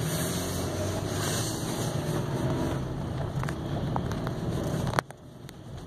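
V6 engine of a GMC Canyon pickup running, heard inside the cab with a steady low hum as the truck sets off. A sharp click about five seconds in, after which the sound is quieter.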